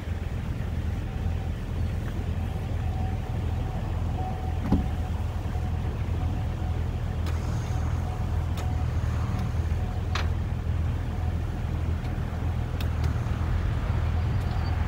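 Steady low hum of an idling vehicle engine, with a few light clicks about 5 and 10 seconds in.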